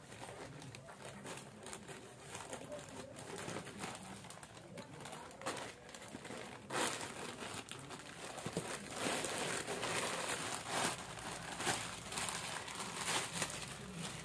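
Scissors cutting open a plastic courier mailer, then the plastic bag, clear flower wrapping and bubble wrap crinkling and rustling as a bouquet of artificial flowers is pulled out. The rustling grows louder in the second half.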